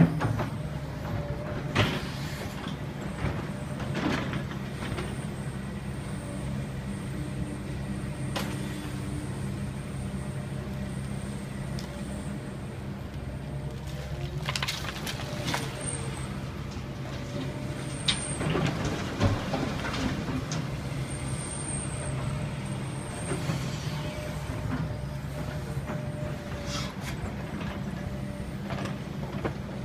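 Link-Belt hydraulic excavator's diesel engine running steadily, with knocks and clattering of demolition debris being dug and loaded, busiest about two-thirds of the way through.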